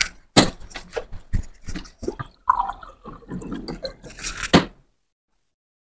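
Water drawn from a bottled-water dispenser into a glass and drunk: the glass clicking and knocking against the tap, water running, then swallowing. The sound cuts off abruptly about a second before the end.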